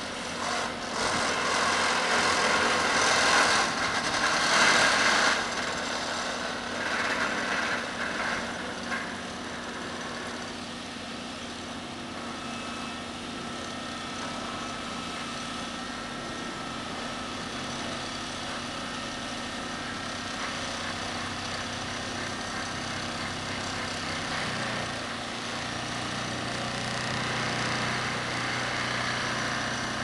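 Excavator-mounted vibratory sheet pile driver (Daedong DPD350T vibro hammer) shaking a steel sheet pile down into the ground, with the excavator's diesel engine running. A loud, rattling buzz fills the first several seconds, then it settles to a steadier, quieter hum.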